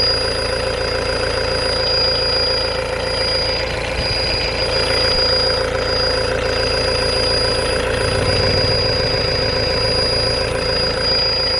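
Mahindra Bolero Pik-Up's engine idling steadily, with a thin, steady high-pitched tone running over the engine note.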